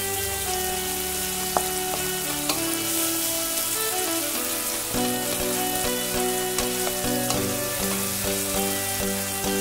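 Sliced onions, green chillies and garlic sizzling in hot oil in an aluminium kadai, stirred and scraped with a wooden spatula, with a sharp knock of the spatula on the pan about a second and a half in. Soft background music with held chords plays underneath.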